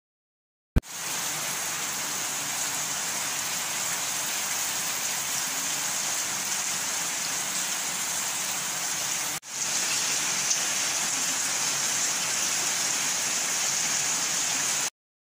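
Heavy rain falling steadily, an even hiss. It starts with a click under a second in, drops out for a moment about nine seconds in, and stops just before the end.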